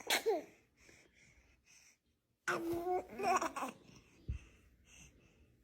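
Baby babbling and laughing in two bursts: a short one at the start and a longer one about two and a half seconds in.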